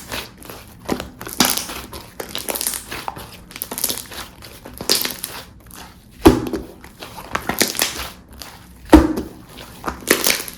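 Clear jelly-textured slime being squished and stretched by hand, making repeated crackling, bubble-popping sounds. There are two louder pops, about six and nine seconds in.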